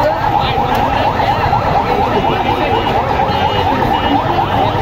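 Ambulance siren in a fast yelp: a rising sweep repeating about four or five times a second, steady throughout, over crowd noise.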